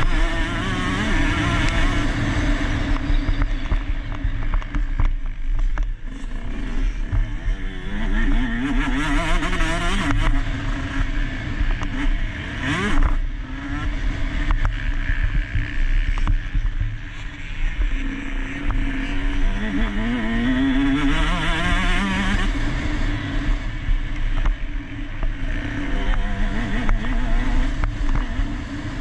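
KTM SX150 two-stroke motocross engine racing under load, its pitch rising as it revs out and dropping back again and again through gear changes and throttle on and off.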